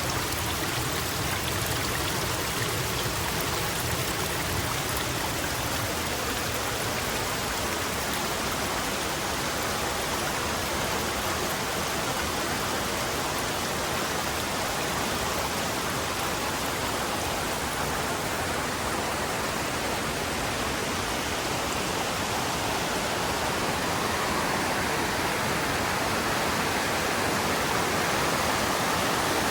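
Mountain river rushing, a steady wash of flowing water that grows a little louder near the end.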